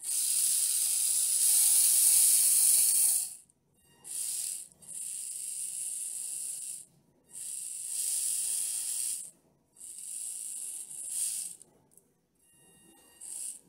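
The small brushed motor-on-axle gear drives of a 1/24-scale Basher Rocksta rock crawler whirring as the wheels spin freely in the air, in about six throttle bursts. The first burst lasts about three seconds and is the loudest; the rest are shorter, with brief pauses between.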